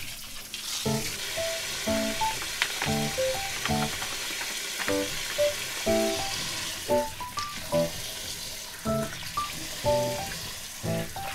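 Kitchen tap water spraying steadily into a sink full of green plums as they are washed, a continuous hiss. Background music of short notes plays over it, about one a second.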